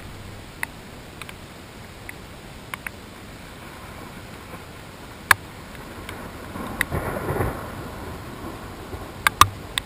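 Steady hiss of rain during a thunderstorm, with a low rumble of thunder that swells and fades about seven seconds in. Sharp taps of drops striking the camera housing come now and then; the loudest is near the middle, with two more close together near the end.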